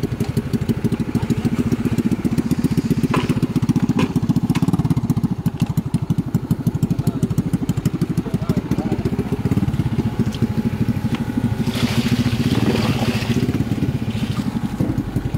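Small motorcycle engine running close by with a rapid, even putter. A louder hiss comes in for about a second around twelve seconds in.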